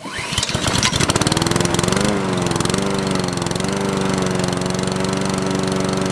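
Lawnmower's small single-cylinder engine starting up, rising in speed and catching, then running steadily from about two seconds in. With a new ignition coil fitted, it now has spark and runs.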